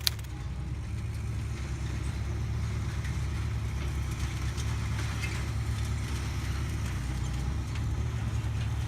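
Steady low rumble under a faint even hiss, with no clear events.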